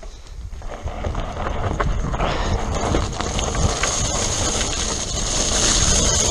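Mountain bike riding down a loose scree trail: tyres crunching and rattling over shale stones, with many small knocks from the bike. It grows louder over the first second as the bike reaches the stony stretch, then stays loud.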